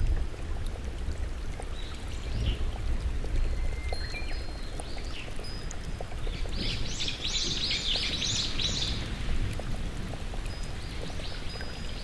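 Heavy rain falling, with a steady low rumble beneath it. Birds chirp over the rain, with thin whistled notes here and there and a fast run of chirps in the middle.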